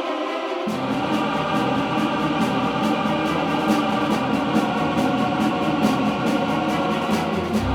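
Music with sustained choir-like voices; a low bass and a steady ticking beat come in about a second in.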